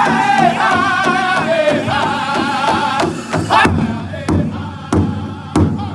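Powwow drum group singing in high-pitched unison while beating a large bass drum in a steady pulse. About halfway through the high singing drops away and the drum strikes come through plainly, about three every two seconds.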